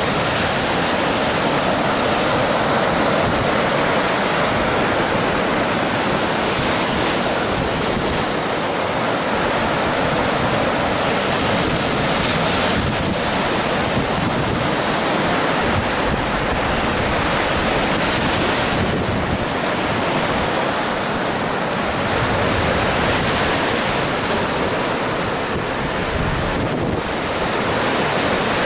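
Sea surf breaking on a sandy shore in a steady wash, with wind on the camera's microphone.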